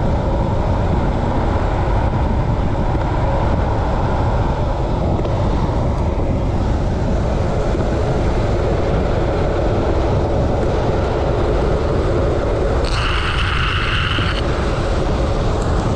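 Steady wind rush buffeting the microphone, with wheels rolling on asphalt, during a fast downhill ride at about 23 mph. A short high squeal of about a second and a half comes near the end.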